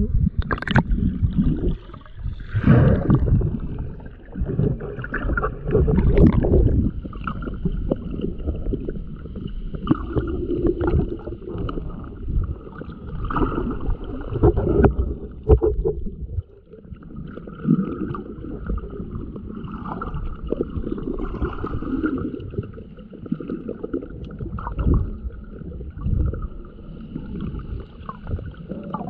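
Muffled sloshing and rumbling of shallow sea water around a camera held just under the surface, uneven and loudest in the first seven seconds or so. A faint steady whine sits above it through most of the rest.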